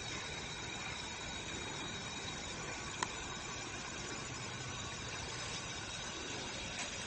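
Steady outdoor background noise with a faint high steady tone, broken by a sharp click about three seconds in and another at the end.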